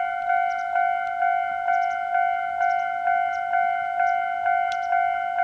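Railway level-crossing warning bell ringing in an even, repeating ding, about two and a half strikes a second, signalling an approaching train.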